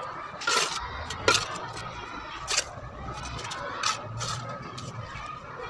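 A bricklayer's steel trowel scraping and tapping on wet mortar and brick as a brick is bedded into the wall: about five short, sharp strokes, the loudest about a second in.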